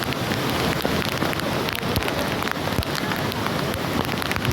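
Heavy rain falling onto hard surfaces: a steady hiss dotted with many sharp drop strikes.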